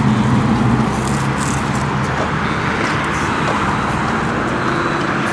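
Steady road traffic noise from a busy street. A car engine's low hum is strongest for the first second or so, then fades into the traffic noise.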